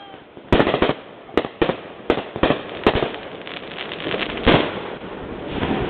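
Fireworks display: a rapid series of sharp bangs and cracks from bursting shells, with the loudest reports about half a second in and again about four and a half seconds in.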